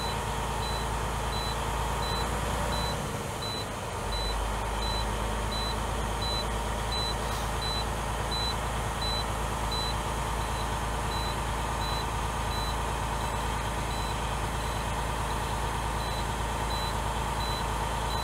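Steady low hum of an idling engine, the vehicle charging the dead semi truck's batteries through jumper cables; the hum drops out briefly about three seconds in. Over it a faint high-pitched beep repeats about one and a half times a second.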